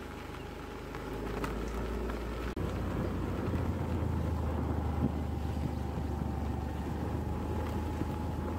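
Motor scooter running steadily while riding along, with wind noise on the microphone; a brief break about two and a half seconds in, then a steady low drone.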